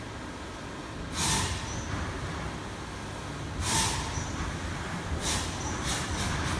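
Short hissing bursts of air over a low, steady machine hum. Two strong hisses come about two and a half seconds apart, then three shorter, weaker ones in quick succession near the end.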